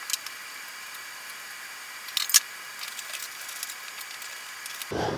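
A few light clicks of metal light-fixture parts handled as the old pendant fixture is taken down from the ceiling electrical box: one at the start and two close together about two seconds in, over a steady hiss.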